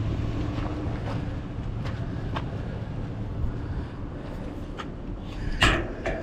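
Vehicle engine idling with a steady low hum, a few light clicks and a sharp knock near the end.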